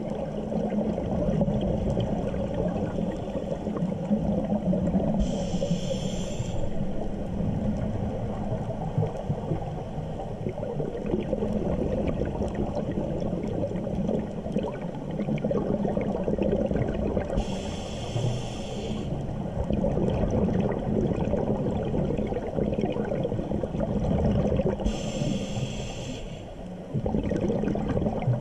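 Scuba diver breathing through a regulator underwater: a steady low bubbling rumble, broken three times by a short hiss of inhalation lasting about a second.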